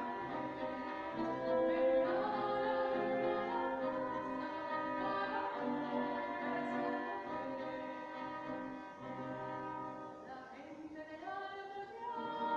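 Small live acoustic ensemble: a woman singing over two violins and an acoustic guitar, in long held notes. The music thins out and softens around ten seconds in, then swells again near the end.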